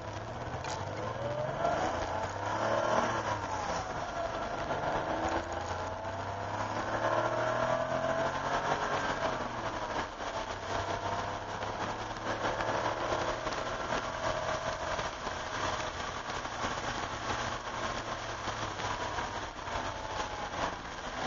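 1988 Porsche 911's air-cooled flat-six heard from inside the cabin, rising and falling in pitch several times as it accelerates through the gears and lifts for corners. A steady hiss of wet tyres and spray runs underneath.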